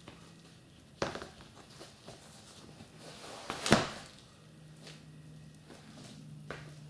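Yeezy Boost 350 V2 Compact knit sneakers being pulled on and set down on a laminate floor: a few short knocks and scuffs, a sharp one about a second in, the loudest a little past halfway, and a smaller one near the end.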